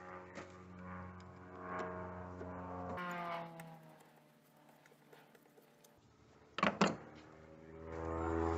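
Background music with held notes. Two sharp clicks come close together about two-thirds of the way through and stand out as the loudest sounds.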